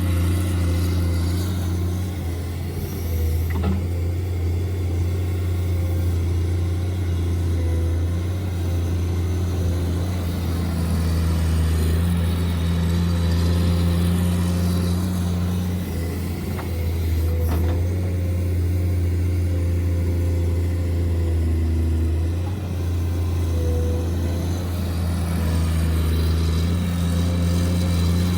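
A steady, engine-like drone from radio-controlled model vehicles running, with small shifts in pitch and level now and then.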